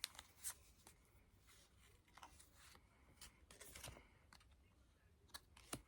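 Faint, irregular clicks and short rustles of Yu-Gi-Oh trading cards being handled and sorted by hand.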